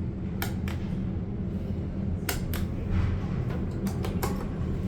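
Elevator car travelling up between floors: a steady low hum with scattered sharp clicks and ticks.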